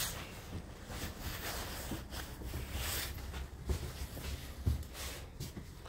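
Faint room noise with a couple of soft low thumps, from footsteps on a tiled floor and a handheld phone being moved.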